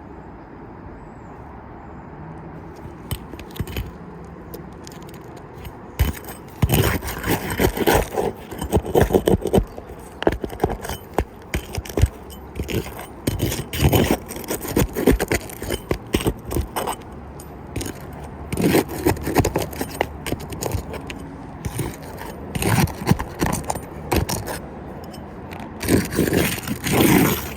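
Asphalt roof shingles scraping and rattling as the damaged shingle is worked loose by hand for replacement. The sound comes in irregular loud bursts from about six seconds in.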